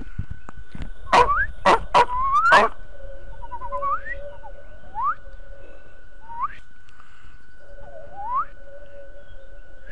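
Whistled imitation birdsong: a quick run of four sharp chirps in the first few seconds, then single rising chirps about every second or two, over a faint steady tone.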